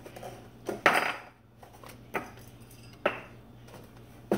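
Kitchen containers knocking and clattering as they are moved about on a cabinet shelf: five or so separate knocks, the loudest about a second in.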